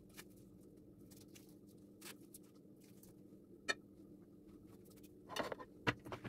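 Kitchen handling sounds over a steady low hum: a sharp click as a knife is set down on a plate, then a brief rustle and a knock as the plate is picked up off the counter.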